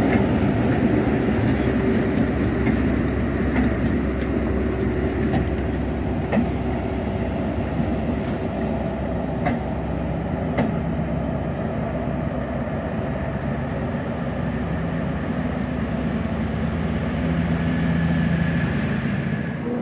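Class 43 HST diesel power cars passing, engines running with a steady drone. A few sharp clicks from the wheels on the track come about a third and halfway through.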